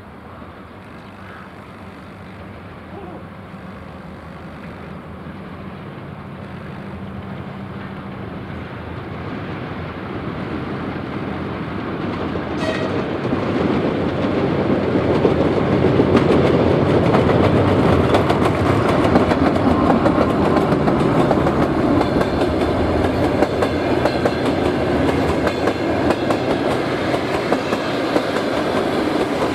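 2TE10M twin-section diesel locomotive arriving with a passenger train, its diesel engines humming and growing steadily louder as it approaches and passes. After that the passenger coaches roll by with the clickety-clack of wheels over rail joints. A brief high tone sounds about halfway through.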